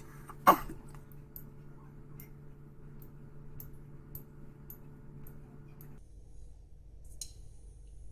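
CV Heljestrand no 7 straight razor being honed on a slurried Black Shadow finishing stone: a sharp click about half a second in, then light ticks about every half second as the strokes go on.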